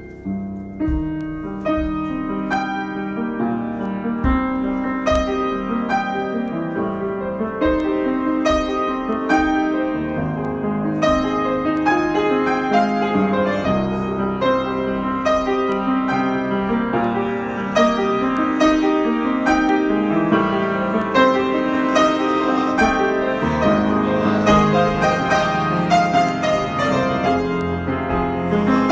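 Improvised solo piano music: a busy, flowing passage of many struck notes and sustained chords. It comes in with a sudden swell in loudness at the start and stays full throughout.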